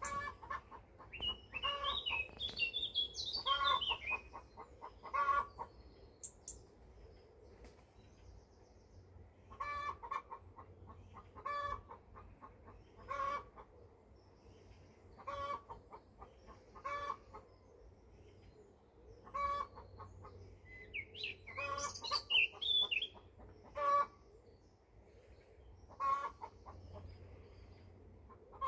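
A bird making short clucking calls like a hen, repeated every one to two seconds, with runs of higher, sliding chirps about a second in and again around two-thirds of the way through.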